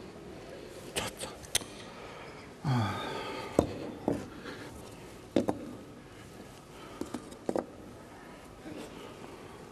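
Small blocks being set down and shifted on a tabletop: a scattered series of short knocks and scrapes. About three seconds in, a brief vocal sound falls in pitch.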